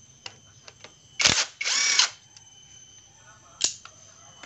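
Cordless drill run in two short bursts about a second in, spinning out a bolt on a Honda Supra Fit engine during teardown, followed by a single click near the end.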